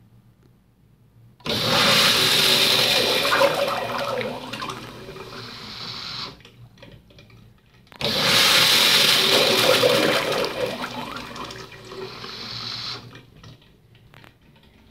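Crane blowout urinal flushing twice. Each flush starts suddenly with a loud rush of water, lasts about five seconds and tapers off.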